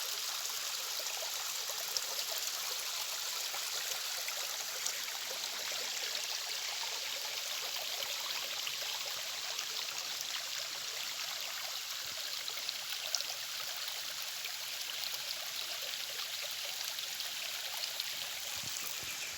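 Stream water flowing and trickling steadily over rocks, a constant splashing rush with a few small splashes.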